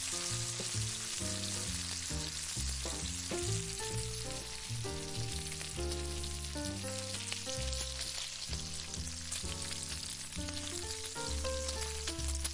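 Steak sizzling in a hot pan, a steady frying hiss, under background music with a melody and bass line.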